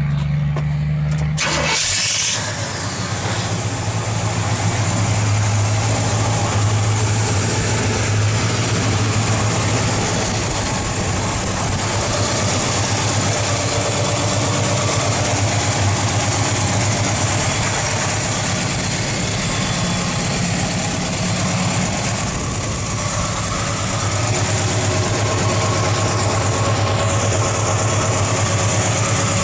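1970 Pontiac GTO's 400 cubic-inch V8 cranking on the starter for about two seconds, then catching and settling into a steady idle.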